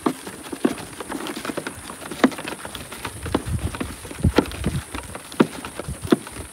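A series of sharp knocks and clacks at an uneven pace, roughly one to two a second.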